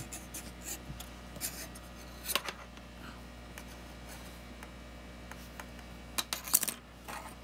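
A few small sharp clicks and taps over a steady low hum, with a short cluster of the loudest clicks about six seconds in.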